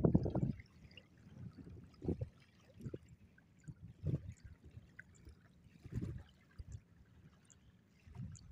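Water sloshing in low surges about every two seconds, as a man wades chest-deep pushing a push net through a river.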